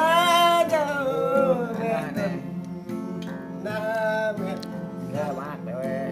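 Acoustic guitar being strummed, with a voice singing along in drawn-out phrases, loudest in the first second or so and again around four seconds in.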